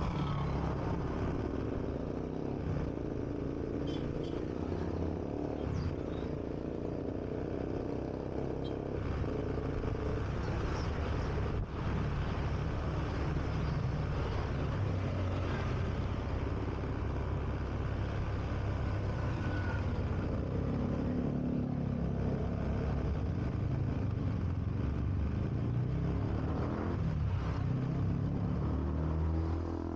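Honda Beat scooter's single-cylinder engine running steadily while riding, heard with wind and road noise on a neck-mounted action camera.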